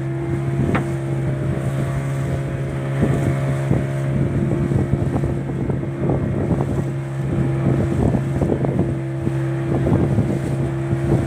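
A motorboat's engine running at a steady pitch while the boat is under way, with water splashing against the hull and wind buffeting the microphone.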